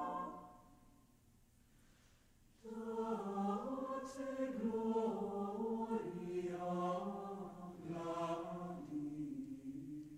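Mixed choir singing a cappella: a held chord dies away about half a second in, leaving a pause of about two seconds, then the choir comes back in with a new, moving phrase, with sharp hissing consonants twice.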